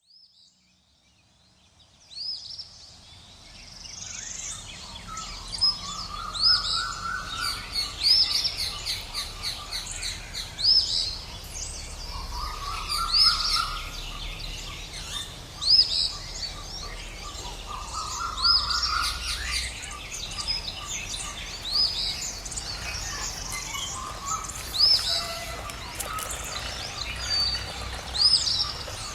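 Several wild birds chirping and singing: short, sharp, high chirps repeat every second or so, and a lower warbled phrase comes back a few times. The sound fades in over the first few seconds.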